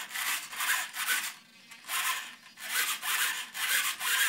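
Nose-wheel steering servo of an Exceed RC 90mm F-18 Super Hornet driving the pull-pull steering back and forth: a run of short mechanical strokes, about two a second.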